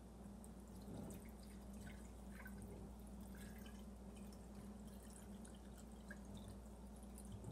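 Faint trickle of clear liquid poured from a plastic jug into a glass jar, with small drips and splashes, over a steady low hum.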